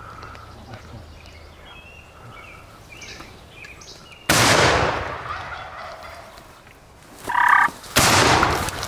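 Two shotgun blasts, the first about four seconds in and the second near the end. Between them a Merriam's wild turkey gobbles once, briefly.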